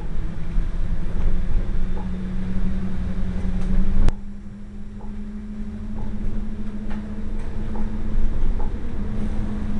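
Alicante FGV tram running, a low rumble under a steady motor hum. A sharp click about four seconds in is followed by a couple of seconds of quieter running before the rumble builds again.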